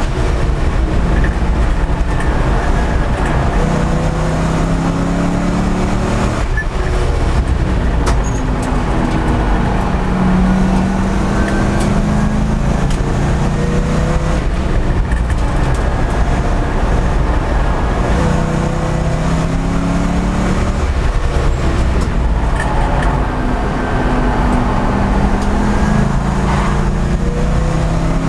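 Race car engine heard from inside the cockpit under hard driving on a track, its revs climbing and dropping back several times through the corners, over steady road and wind noise.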